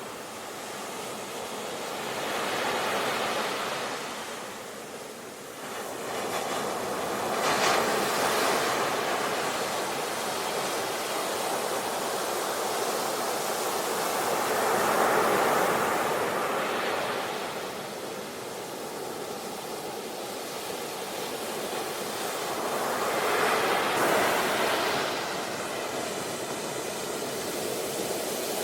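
Sea waves breaking and washing in: a steady hiss of surf that swells and fades about four times, with the sharpest crash about eight seconds in.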